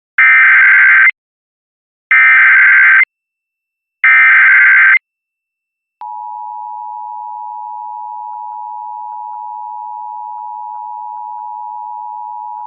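Emergency Alert System SAME header: three identical one-second bursts of warbling digital data tones, two seconds apart. About six seconds in, the steady two-tone EAS attention signal (853 and 960 Hz) starts and holds, announcing a flash flood warning.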